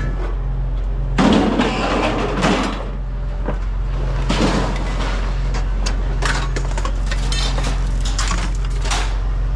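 Scrap items being handled: a loud clatter a little over a second in, a shorter one about four and a half seconds in, and scattered knocks and clicks, over a steady low hum.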